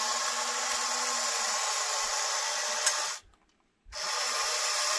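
Battery-powered toy crane's small electric motor and gears whirring steadily as the clamshell bucket lowers. It cuts off with a click about three seconds in, stays silent for under a second, then runs again.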